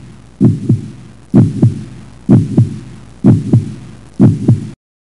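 Heartbeat sound effect: deep paired thumps, lub-dub, about once a second, five beats in all over a low hum, then it cuts off suddenly near the end.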